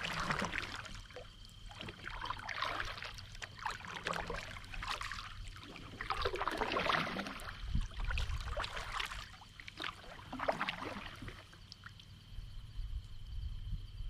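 Water splashing and sloshing around a kayak in irregular swishes, with a faint steady high tone behind.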